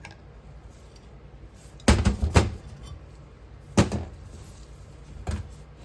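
Several sharp knocks and clunks of hard objects being handled and set down: three in quick succession about two seconds in, another near four seconds and a fainter one near the end.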